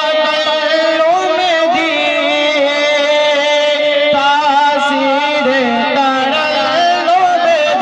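A man sings a Punjabi naat into a microphone, amplified through a PA system. He holds long notes with a wavering, ornamented pitch and carries on without a break.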